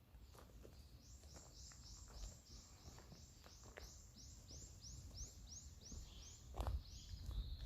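A bird singing a fast run of repeated high, arched notes, about three a second, for about five seconds, then one more note. Faint scattered clicks lie underneath.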